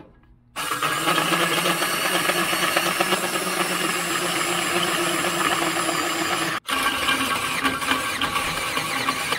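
Cordless drill driving a 3-inch hole saw through a metal plate: a loud, steady cutting noise with several held tones. It starts about half a second in and stops for an instant about two-thirds of the way through.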